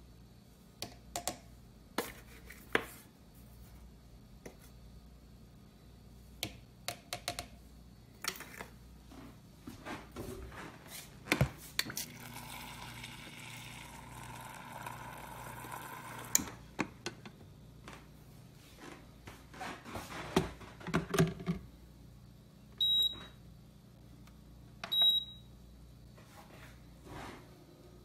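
SAKI Turkish coffee maker and its pot being handled: scattered clicks and knocks from the pot, a rushing sound of about four seconds midway, more knocks as the pot is set into the base, then two short high beeps from the machine's control buttons, about two seconds apart, near the end.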